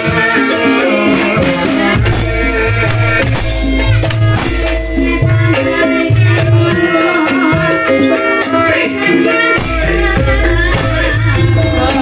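Javanese gamelan gending for an ebeg hobby-horse dance: steady pitched metallophone notes over kendang drumming, with a voice singing in places.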